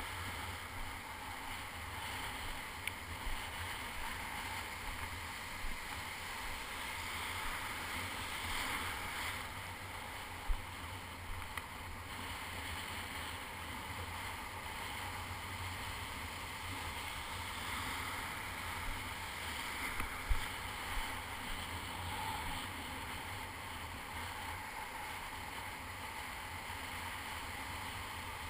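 Steady rush of shallow breaking surf and foaming white water close to the microphone, with a few light knocks and splashes.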